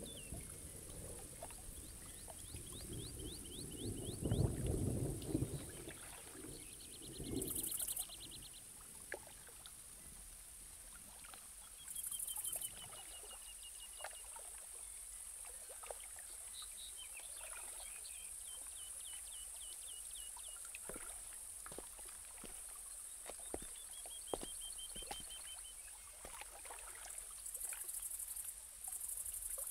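Faint garden ambience: a steady hiss with short runs of quick bird chirps every few seconds and light trickling water, with a louder low watery rumble about four seconds in.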